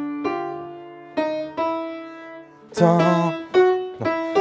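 Upright piano played slowly, single notes picked out one at a time as a simple children's tune is recalled, each note ringing and fading. From about three seconds in the notes come faster, with a wavering tone sounding over them.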